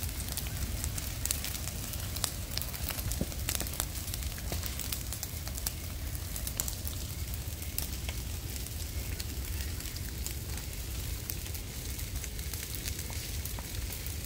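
Open fire burning through felled, dried brush and logs, crackling with many sharp irregular pops over a steady low rumble.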